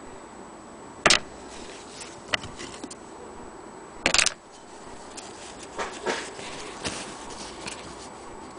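Cloth rustling and fingers scuffing close to the microphone as a fabric sample is handled, with two loud scuffs about a second in and about four seconds in, then softer rustles, over a steady background hiss.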